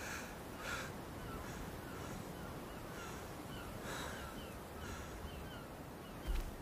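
Birds calling over a steady outdoor hiss: a few harsh crow-like caws, and a run of short falling chirps about three a second. A dull low thump near the end.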